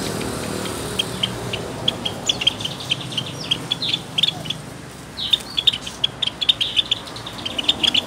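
A flock of caged Java sparrows calling: many short, high chirps, scattered at first and then coming thick and fast through the second half.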